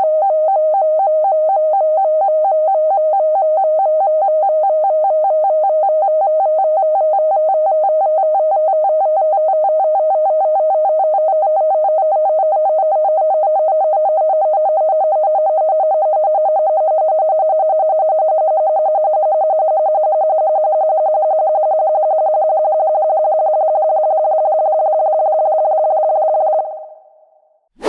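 Vintage 1950s-style sci-fi spaceship malfunction effect: a loud, steady electronic synthesizer tone with a fast, even warble. It fades out near the end, then a short blip sounds.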